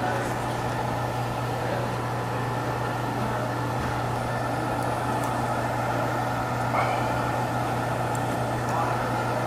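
Steady low mechanical hum of restaurant machinery, with a few faint sips as soup broth is eaten from a spoon.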